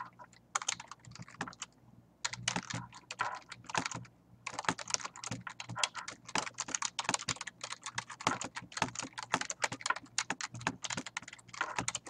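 Computer keyboard typing in quick runs of keystrokes, with two short pauses, about two and four seconds in.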